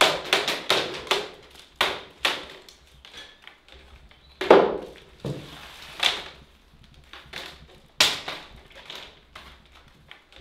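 Thin chestnut-wood basket splints clattering and knocking against each other and the floor as they are sorted and picked up by hand. The sharp wooden knocks come irregularly, several in quick succession at first, the loudest about four and a half seconds in.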